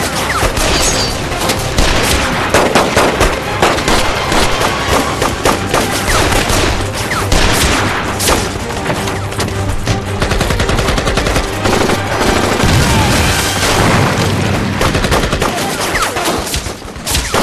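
Dense gunfire: many rapid, overlapping gunshots from pistols and automatic weapons, the sound effects of a staged gunfight.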